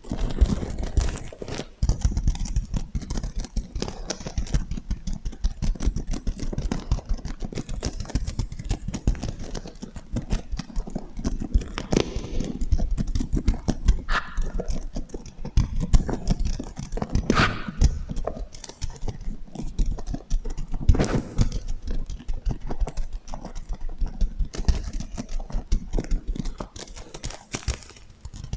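Fingers scratching and stroking a sequin pillow, a dense, rapid clicking and rustling of flipping sequins, played through an echo effect.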